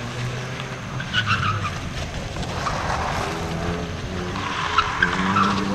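Car driven hard through a corner on a rally stage: its engine revs up and down, and the tyres squeal briefly about a second in and again near the end.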